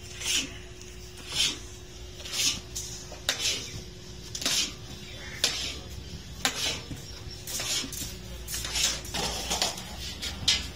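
Long metal stirrer scraping around the inside of a large iron karahi as a thick, grainy sohan halwa mixture is stirred, about one stroke a second.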